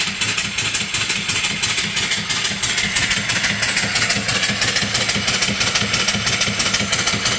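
Homemade vertical steam engine (3-inch bore, 4-inch stroke) running steadily at about 200 rpm. Its exhaust chuffs rapidly and evenly, roughly six or seven beats a second, over a continuous steam hiss. The boiler is running low on steam pressure.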